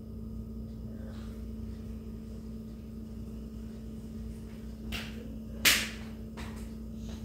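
Sips from a drinking glass: a few short, sharp sipping noises, the loudest about two-thirds of the way in, over a steady low hum.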